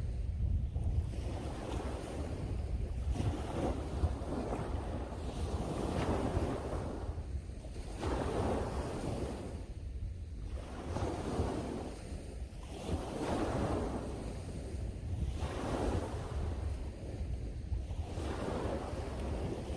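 Sea waves washing ashore, surging and falling back about every two seconds. Under them runs a steady low rumble of strong wind buffeting the microphone.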